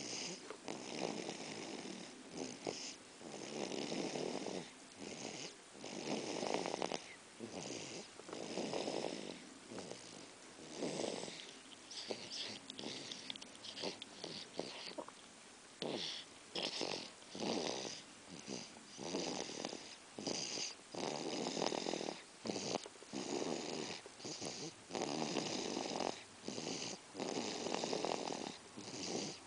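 Snoring: a run of short snores about once a second, uneven in loudness, with brief pauses between them.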